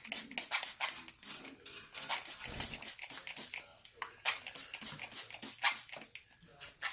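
Small pet parrots giving rapid, short, harsh chirps and squawks, many in quick succession.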